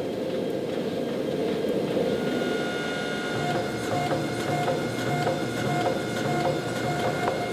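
Forging machinery running steadily: a dense mechanical rumble with a rapid, even clatter, joined about two seconds in by a steady whine.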